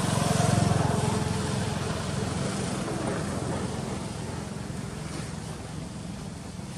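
A motor vehicle passing, its low engine rumble swelling to a peak in the first second and then slowly fading away.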